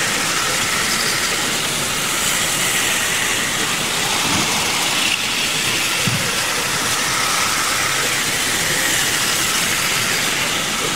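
Steady hiss of hall background noise with a faint wavering whine from a model train's small electric motor running on the layout, and two soft low thumps near the middle.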